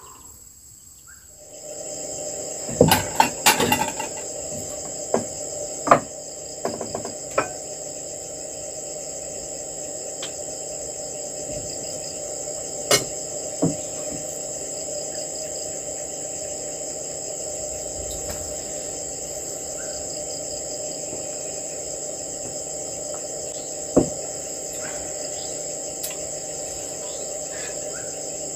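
A steady insect chorus of several high, unbroken ringing tones. Over it come sharp clicks and knocks of utensils on a frying pan and dishes: a cluster about three seconds in, then single ones now and then.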